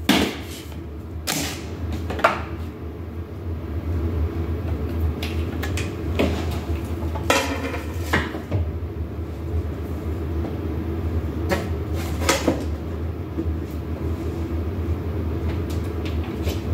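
Knocks and rustles of objects being handled, several spread through and one longer rustle near the middle, over a steady low hum.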